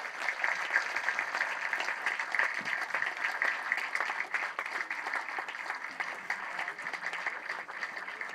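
Audience applauding, many hands clapping steadily together, easing slightly near the end.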